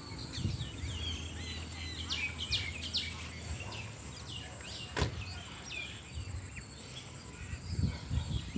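Small birds chirping and whistling in short, quick calls over a low background rumble, with a single sharp click about five seconds in.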